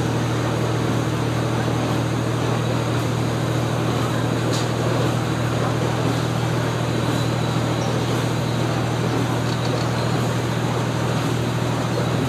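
Cabin noise of a KiHa 47 diesel railcar running at speed: the diesel engine's steady low drone under the even rolling noise of wheels on rail.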